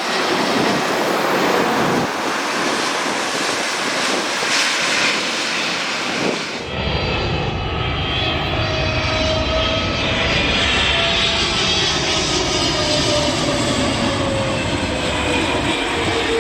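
Loud jet airliner engine noise as the aircraft passes close by. About six and a half seconds in, the sound changes abruptly to a deeper rumble carrying several engine whine tones that slowly fall in pitch as the aircraft goes past.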